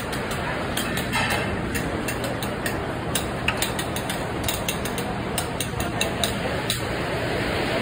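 Steady rushing background noise of a commercial kitchen, overlaid with many irregular light clicks and knocks of work and handling, most frequent past the middle.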